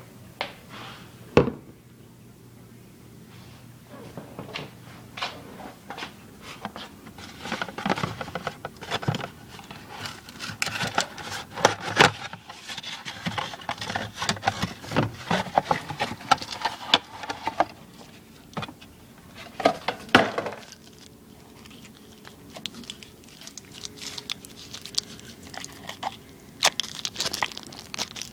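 Handling of a plastic refrigerator water filter and its packaging: irregular clicks, knocks, scrapes and crinkling, busiest in the middle, with a sharp knock shortly after the start and another about two-thirds of the way through.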